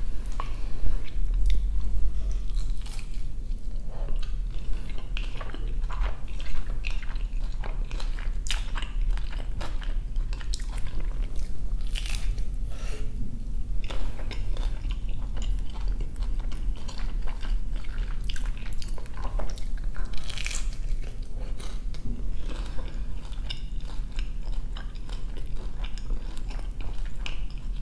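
Close-miked biting and chewing of a crispy fried quesobirria taco: crunching bites followed by wet chewing, with frequent sharp crackles throughout.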